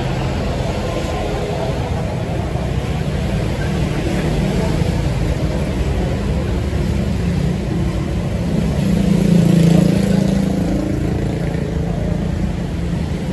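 Road traffic running steadily, with one vehicle passing close and loudest about nine to ten seconds in.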